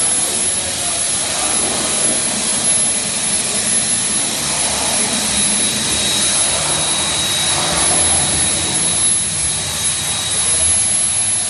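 Hypertherm plasma torch on a CNC cutting table cutting steel plate: a loud, steady hiss with a thin high whine, and a fainter whistle in the middle.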